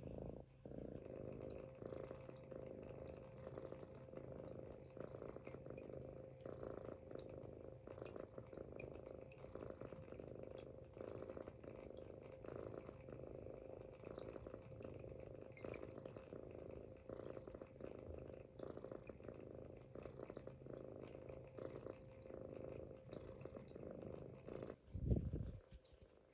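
Munchkin kitten snoring softly in its sleep, a low rumble with a faint hiss on each breath, about one breath every second and a half. A brief louder bump or rustle comes near the end.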